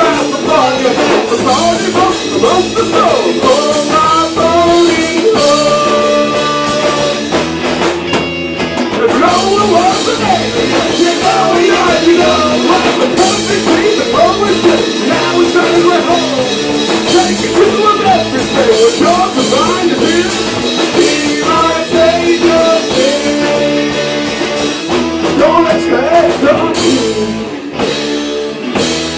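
Punk rock band playing live, with drum kit, guitar and singing.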